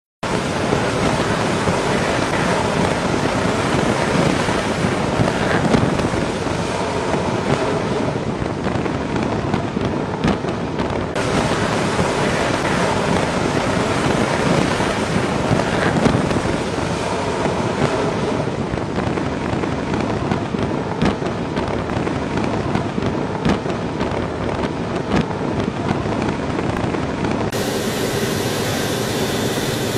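Steady, loud rushing noise of a carrier flight deck during launch operations: F/A-18 Super Hornet jet engines running at high power, mixed with wind on the microphone. The sound changes abruptly twice, about a third of the way in and near the end, where the footage is cut.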